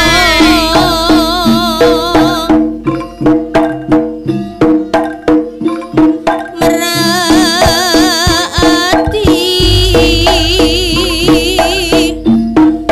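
Live jaranan gamelan music: steady drum strokes with struck gongs and metallophones, and a wavering high melody line over them. The melody drops out a couple of seconds in, leaving the drums and gongs, and returns about seven seconds in. A deep gong boom enters near ten seconds.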